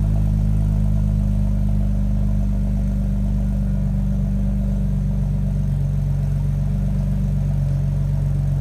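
Audi B5 S4 Avant's 2.7-litre twin-turbo V6 idling steadily after a cold start, heard at the tailpipe of its custom 3.5-inch single exhaust with 3-inch downpipes and 200-cell cats.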